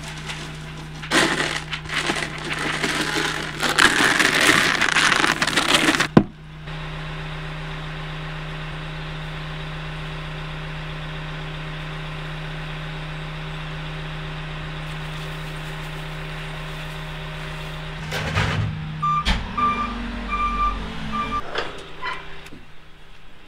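Calf pellets rattling from a bucket into a metal feed trough in loud bursts, over a diesel engine idling with a steady hum. Near the end come several metal knocks and clanks from a steel gate bolt, with a few short beeps.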